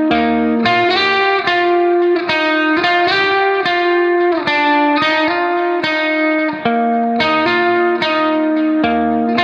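Instrumental background music: a steady melody of plucked notes, each struck sharply and changing about twice a second.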